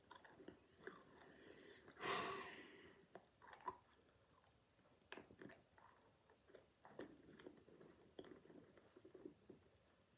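A child chewing a soft flavoured snack, with faint wet clicks and smacks of the mouth; a brief louder breathy rustle about two seconds in.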